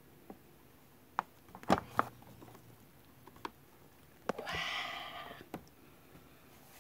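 Light, scattered clicks and knocks from handling an open Cuchen electric rice cooker and its inner pot of cooked rice, then about a second of rustling noise a little past the middle.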